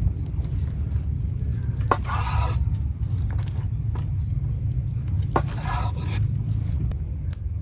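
Two scraping strokes, about three seconds apart, each beginning with a sharp click and trailing into a short swish, over a steady low rumble.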